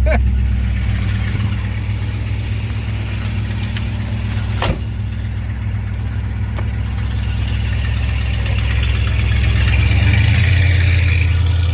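1963 Plymouth Sport Fury's 383 V8 running with a steady deep drone; its note steps up about ten seconds in. A single sharp click sounds about five seconds in.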